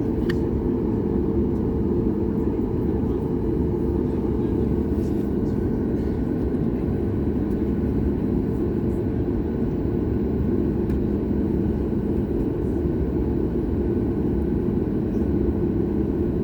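Steady low drone inside the cabin of a Boeing 737 MAX 8 holding on the ground with its CFM LEAP-1B engines at idle, with a constant low hum and a few faint clicks.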